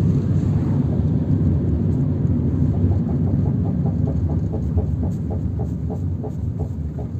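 Car rolling under braking with a rapid rhythmic knocking from a rear drum brake, about four or five knocks a second that slow as the car slows, over the low rumble of the road. The owner takes it for a faulty rear brake wheel cylinder pushing only one shoe out, leaving the shoes loose in the drum.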